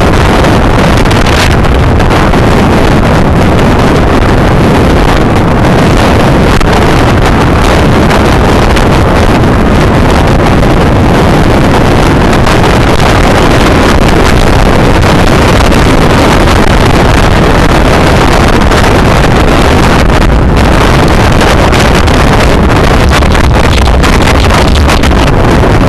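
Loud, steady wind rush buffeting the microphone, from riding along on a road bicycle at speed.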